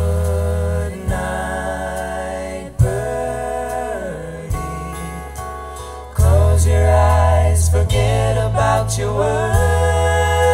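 Live band playing: singing over acoustic guitar, electric guitar, drums and keyboard, growing louder about six seconds in.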